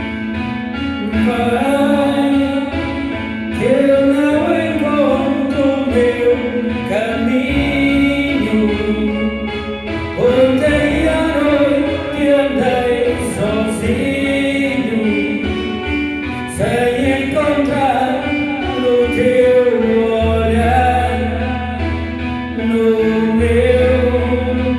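A song: singing over an instrumental backing, with the sung melody coming in about a second in.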